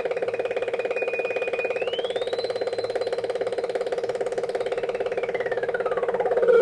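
Synthesized output of a DIY Eurorack audio-processor module patched as two oscillators into a balanced (ring) modulator and filter: a harsh buzzing drone with a fast flutter. Over it a high whistling tone steps up in pitch about two seconds in, holds, then slides steadily down through the last two seconds.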